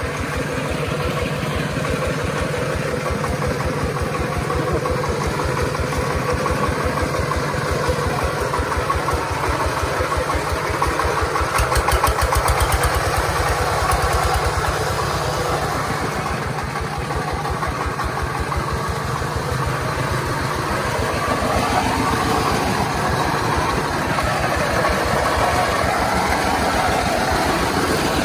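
Stationary diesel engine on a tractor-converted farm cart running steadily under load with a rapid, even knocking beat, as the single-axle-drive cart labours along a slippery rain-soaked road with a load of coffee sacks.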